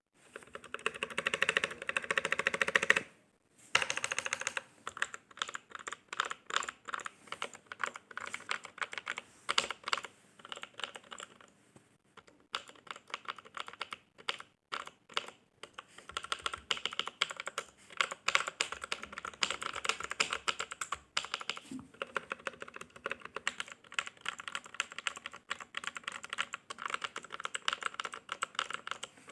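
Mechanical keyboard being typed on, a deep key sound that the title calls "thick". It opens with a very fast, near-continuous flurry of keystrokes for about three seconds, breaks off briefly, then settles into steady typing with a couple of short pauses.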